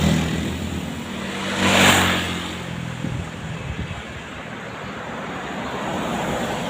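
A large vehicle's engine, likely a passing bus, fading away, with a brief loud whoosh about two seconds in. After that, only steady road traffic noise. No horn is sounding.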